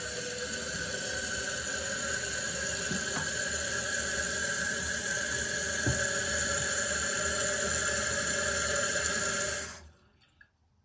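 Kohler toilet's fill valve refilling the tank after a flush, a steady rush of water that shuts off abruptly near the end. The clean shut-off shows the tank has stopped filling: the new canister seal is holding and the toilet no longer runs.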